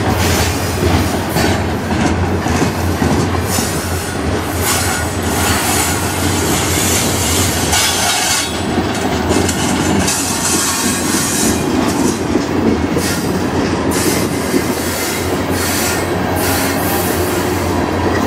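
Freight train cars, including covered hoppers and tank cars, rolling past, their steel wheels rumbling and clacking over the rail joints in a steady, loud clatter.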